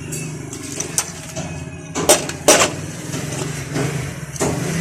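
Truck diesel engine idling steadily, with a few sharp clanks over it, the loudest two about two seconds in.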